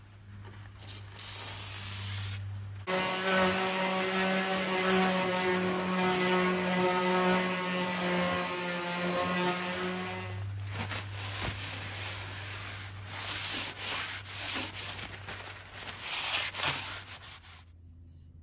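Electric random orbital sander running against a steel blade, a steady motor whine with a rasping hiss, for roughly the first ten seconds. Then hand sanding with sandpaper follows in quick, uneven rubbing strokes, which stop shortly before the end.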